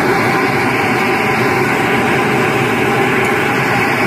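Electric blower running steadily, forcing air up through a clear plastic tube test rig: a constant loud rush of air with a motor hum.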